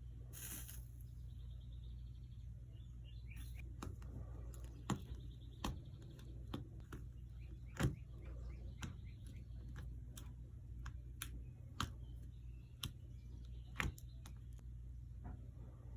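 Scattered light clicks and taps, about one a second, over a steady low hum: metal tools and glass pieces being handled during stained-glass soldering.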